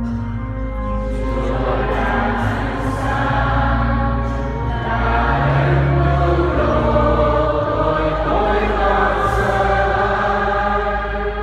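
Several voices singing a hymn together over steady, held low accompaniment chords.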